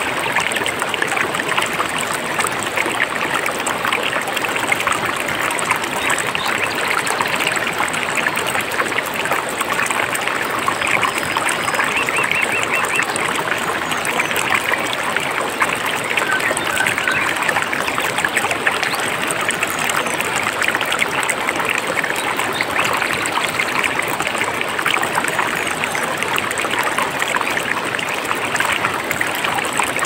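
Mountain stream flowing steadily: a continuous rush of splashing, trickling water. A few faint, short bird calls come through about a third of the way in and near the middle.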